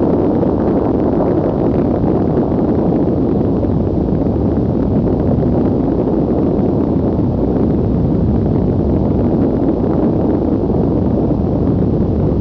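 A steady, loud, low rumbling noise that holds without breaks or changes.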